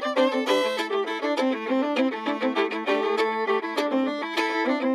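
Background music: a lively fiddle tune of quick, short notes.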